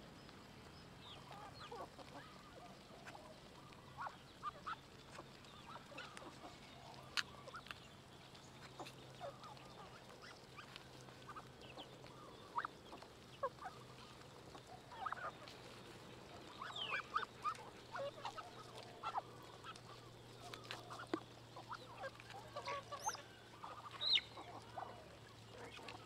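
Waterfowl calling: short, scattered calls and chirps, some sliding quickly in pitch, coming more often in the second half. A faint steady low hum runs underneath.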